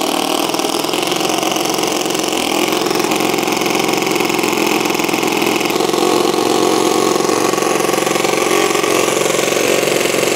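Toyan FS-L200AC two-cylinder, four-stroke SOHC nitro glow model engine running steadily on its first run, just after catching on its electric starter. It gets a little louder about six seconds in.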